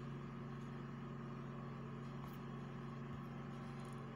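A steady low-pitched mechanical hum with no change.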